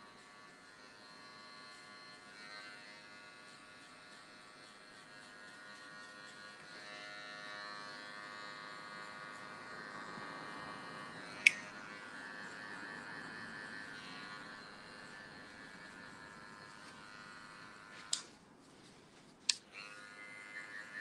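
Electric hair clipper running, held inverted and cutting hair to remove bulk for a skin fade, a steady buzzing hum that stops about 18 seconds in. A sharp click comes about halfway through, and two more near the end after the clipper stops.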